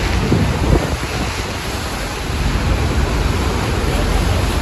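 Steady roar of the Horseshoe Falls at Niagara and the churning water at its base, with wind rumbling on the microphone.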